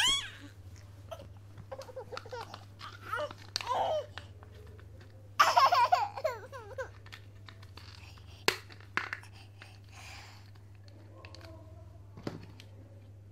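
A small child babbling and laughing in high, sliding squeals, loudest about halfway through. A few sharp clicks of plastic toy parts being fitted together follow near the end.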